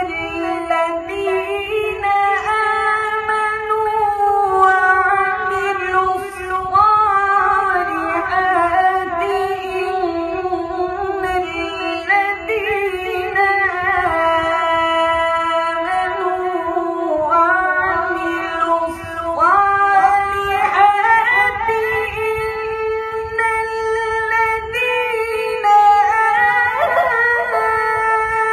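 A man's voice reciting the Quran in a high, drawn-out melodic style, singing long ornamented phrases held for several seconds each, with short breaks between them.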